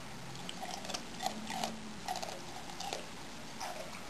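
Rhodesian Ridgeback licking an emptied food bowl: an irregular run of short clicks and smacks of tongue and mouth at the bowl, busiest in the middle.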